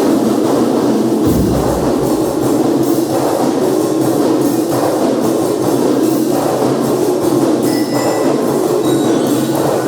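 A marching band playing: drums and band instruments, with bright ringing bell-lyre notes coming in near the end.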